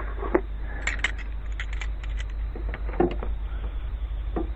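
Loose steel combination wrenches clinking against each other as they are handled and set down, in several separate clinks, over a steady low hum.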